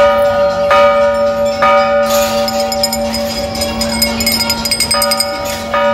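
Brass temple bell rung by pulling its chain, struck about five times, each stroke ringing on into the next.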